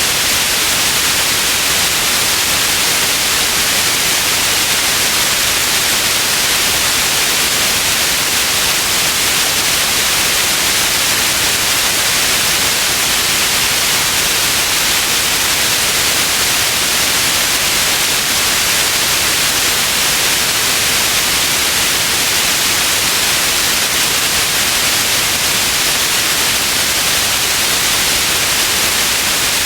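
Steady white noise: an even, unbroken hiss, strongest in the high frequencies, with no change in level.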